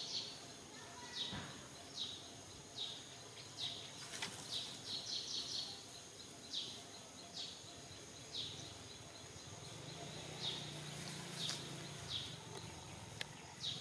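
A bird calling over and over: short descending chirps about once a second, some in quick runs of three or four notes, against steady outdoor background noise.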